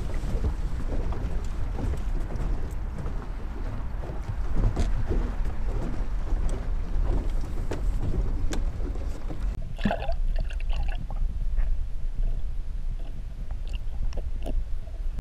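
Wind rumbling on the microphone over water slapping at an aluminum fishing boat's hull, with a few light knocks and a short pitched sound about ten seconds in.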